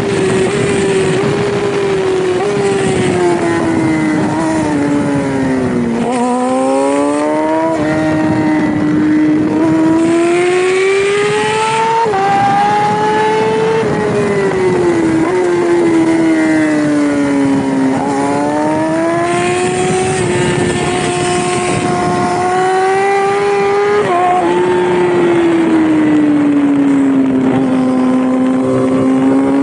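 Yamaha R6 600cc inline-four sport bike engine at high revs on a race track, heard from on the bike. Its pitch climbs under acceleration and falls away into the corners, over and over, with a few abrupt steps where gears change. Wind rushes steadily.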